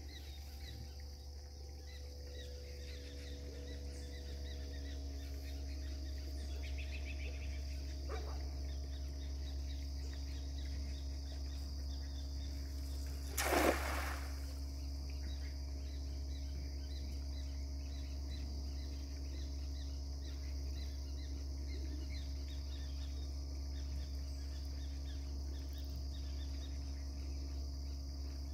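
A cast net lands flat on the pond surface with one short splash about halfway through, the loudest sound. Around it is a steady rural background of insects chirping over a low hum.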